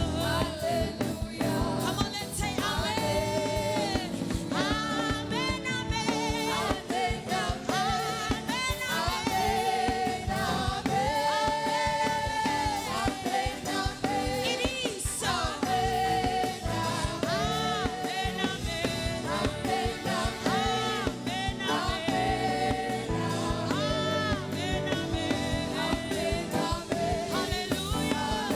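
Gospel worship song: sung vocals with vibrato over instrumental backing.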